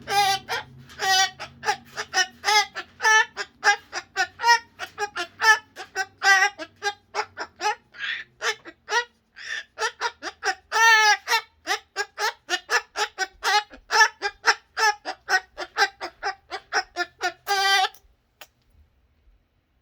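Pet cockatoo calling over and over in short, repeated calls, about two to three a second, that stop about eighteen seconds in.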